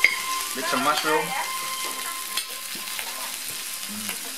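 Food sizzling steadily on an electric gourmet table grill, with a sharp clink of cutlery on a plate at the start and a lighter click about two seconds in.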